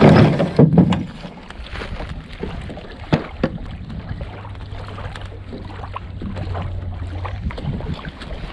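Canoe being paddled on a lake: paddle strokes in the water and scattered light knocks, with wind on the microphone. The loudest rush of water comes in the first second.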